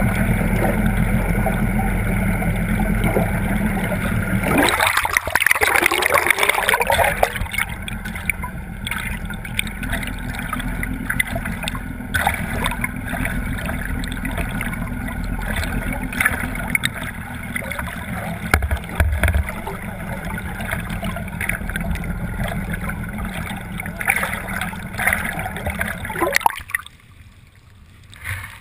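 A boat motor runs steadily at first. About four and a half seconds in, it gives way to rushing, gurgling water as the net-mounted camera in its waterproof housing is dragged through the lake. Near the end the sound drops away suddenly for a couple of seconds.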